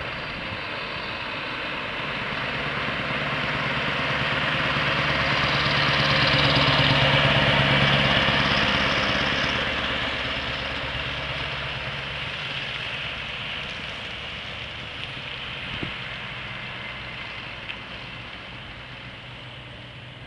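Scania V8 diesel truck hauling a container trailer driving past: the engine note grows louder as it approaches, is loudest about a third of the way in, then fades as the truck pulls away.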